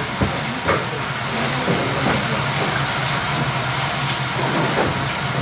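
Restaurant room noise: a steady low hum and even hiss, with a couple of light knocks about a quarter and three quarters of a second in.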